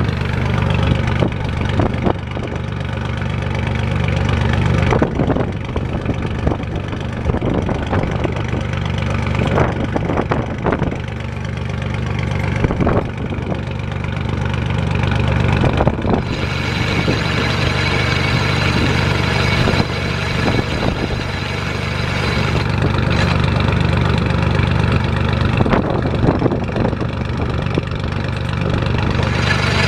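Free-fall lifeboat's diesel engine idling steadily during its weekly test run, a constant low hum; about halfway through the sound turns brighter, with more hiss on top.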